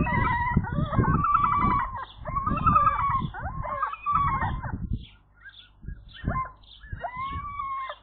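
Common gulls giving greeting calls at the nest: a run of loud mewing and chattering calls for about four and a half seconds, a short lull, then a few drawn-out, arching calls near the end. A low rumbling noise sits under the first half.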